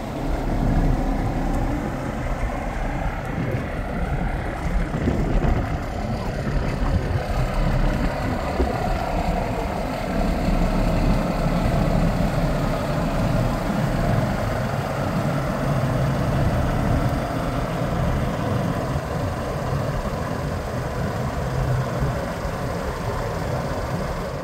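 2013 Kenworth T800 semi tractor's diesel engine idling steadily.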